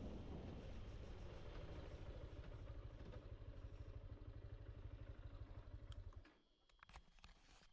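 Honda Hornet 2.0 motorcycle's single-cylinder engine running as the bike is ridden, a low rumble that cuts off suddenly about six seconds in, followed by a few light clicks.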